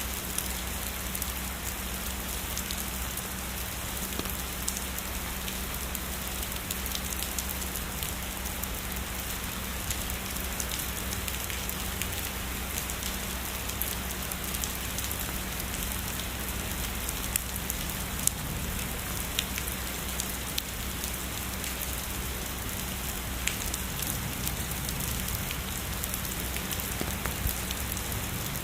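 Steady heavy rainfall, an even hiss with scattered sharp ticks of single drops hitting close by; a few louder drop ticks come a little past the middle.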